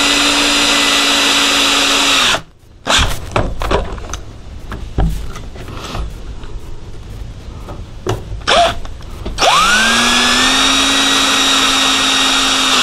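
Cordless drill driving 2½-inch screws into 2x4 framing. A steady motor whine stops about two seconds in, followed by several seconds of clicks and knocks. The motor then spins up again with a rising whine and runs steadily to the end.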